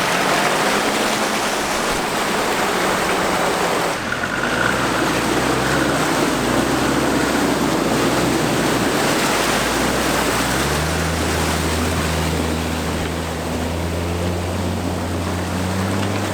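A 4x4 driving through a water crossing: a steady rush of splashing water, with the engine's low, even drone coming through clearly from about ten seconds in.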